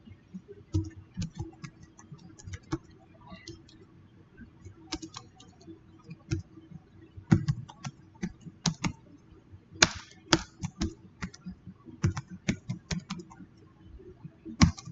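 Typing on a computer keyboard: irregular runs of key clicks, entering login details.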